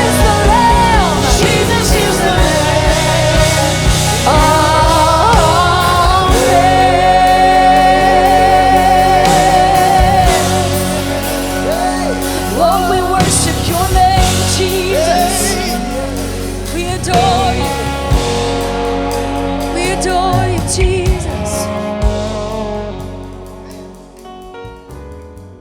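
Live worship song with a singer and band, the voice holding long notes over the instruments; the music fades out near the end.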